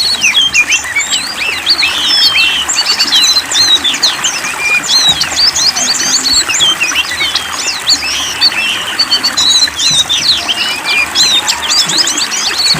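A flock of small songbirds chirping and twittering continuously, many short rapid calls overlapping at once over a steady background hiss.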